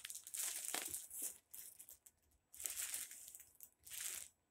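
Crinkly packaging and clothing rustling and crumpling in several short bouts with brief pauses, as a hoodie is handled and pulled out of a cardboard mail box.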